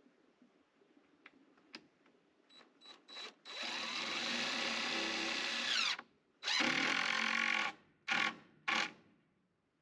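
Cordless drill driving screws through pine trim into a plywood door. A few quick trigger blips lead into a long run that winds down in pitch as it stops, then a shorter run and two quick bursts near the end.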